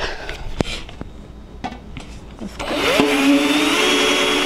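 A few clicks, then about two and a half seconds in a cordless drill's motor spins up with a rising whine. It settles into a steady run as a pointed twist bit bores into a thin metal plant pot, with a loud grinding hiss over the motor hum.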